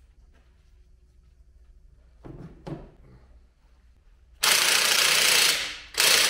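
A couple of light knocks, then a cordless impact wrench hammers in a loud burst of about a second, followed by a second, shorter burst near the end, as the bolts on the exhaust pipe joint under the car are run up tight.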